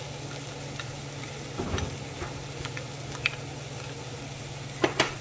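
Diced onion, sweet potato and carrots sizzling steadily in a frying pan as minced garlic is scraped in with a spoon, with light clicks and two sharp taps near the end from the spoon against the dish.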